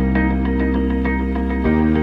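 Background music: soft ambient instrumental with held chords and a low bass note that changes near the end, over light plucked notes.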